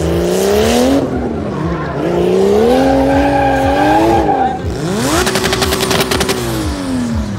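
Drift car's engine revving hard in repeated rises and falls: it climbs, drops off about a second in, climbs again, then holds a steady high pitch with a rapid stutter before falling away near the end. Tyre squeal and hiss from the sliding car runs underneath.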